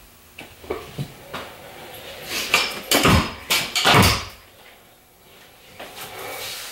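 Stunt scooter knocking and clattering on a concrete floor: a few light clicks first, then a cluster of loud, sharp knocks in the middle.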